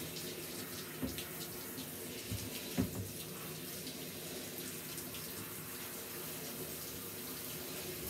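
Water running steadily from a handheld shower head, rinsing a dog in a plastic tub, with a couple of light knocks about one and three seconds in.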